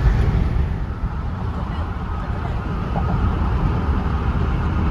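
Car road noise heard from inside the cabin: a steady low rumble of engine and tyres with a hiss of air over it.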